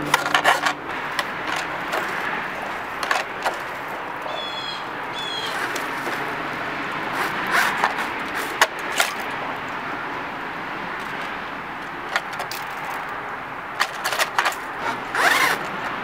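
Homemade vent brush, a toilet-snake cable fitted with zip ties, scraping and clicking as it is pushed and twisted through a dryer exhaust pipe to loosen lint, over a steady hiss.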